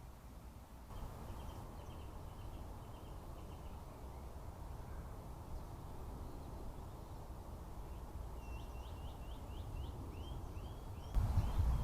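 Small garden birds chirping faintly over a low outdoor rumble. A row of short chirps comes about a second in, then a quick run of about six sharp, rising chirps near the end.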